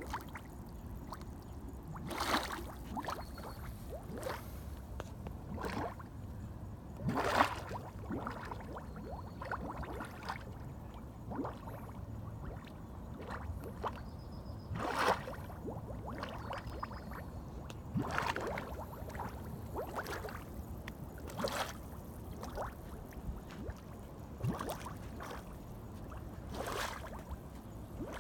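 Mud volcano vent erupting: thick grey mud gurgling and plopping as gas bubbles burst through it, in irregular bursts every second or few over a low steady background.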